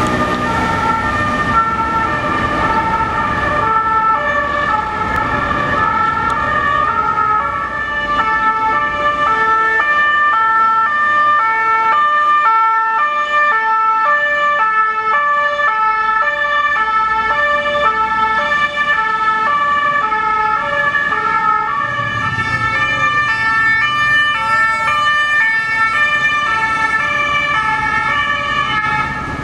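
French police two-tone siren alternating steadily between two notes. Passing vehicles add a low rumble of engine and tyre noise near the start and again later on.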